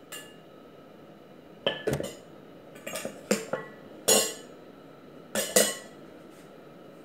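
Kitchenware clinking and knocking: a handful of irregular sharp strikes, several in quick pairs, each leaving a short ringing tone.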